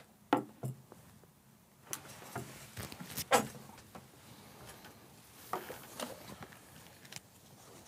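Microphone handling noise: scattered clicks, knocks and rustles as a microphone is fiddled with, the loudest knock about three seconds in.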